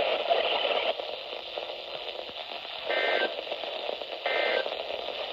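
NOAA Weather Radio broadcast heard through a receiver with steady static: the tail of a spoken message for about a second, then three short two-tone SAME data bursts a little over a second apart, the end-of-message code that closes an alert.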